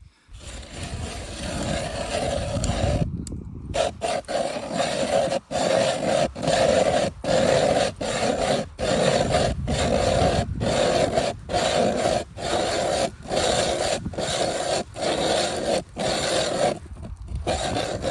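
Hand ice auger boring through lake ice: a rough, rhythmic scraping that dips briefly about once a second.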